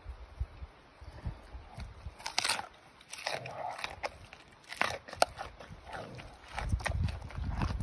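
Giant panda chewing a chunk of pumpkin with open-mouthed, irregular crunches, a few of them louder, about two and a half and five seconds in.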